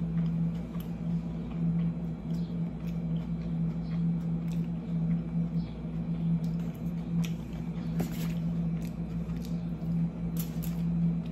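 Thick sauce being poured from a glass bottle onto a toasted tortilla: soft squishing with scattered small clicks as the bottle is handled. A steady low hum runs underneath.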